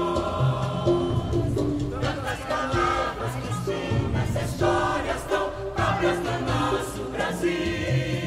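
Church choir singing with instrumental accompaniment and a steady beat.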